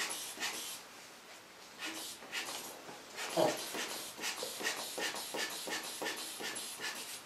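Quick rhythmic puffs of air, about three a second: a sphygmomanometer bulb being squeezed to inflate a blood pressure cuff. A short falling squeak comes about three and a half seconds in.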